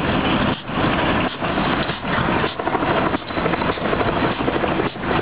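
Diesel freight locomotive and its train running through a grade crossing, heard under a loud, dense rushing noise that dips briefly every second or less, like wind buffeting the microphone.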